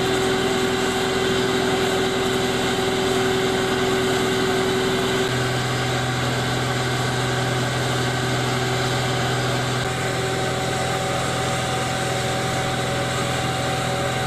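A fire engine's motor running steadily with a constant hum. The pitch of the hum changes abruptly twice, about five seconds in and again near ten seconds.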